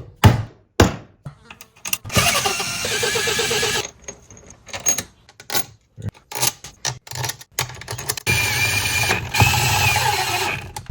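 Workshop sounds: a series of sharp metal knocks, then a power tool running in two bursts of about two seconds each, with clicks and taps between them.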